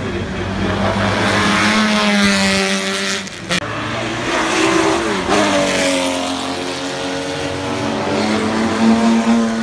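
Classic racing cars at full throttle passing one after another down a wet main straight, their engine notes swelling and shifting in pitch as they go by, over a steady hiss.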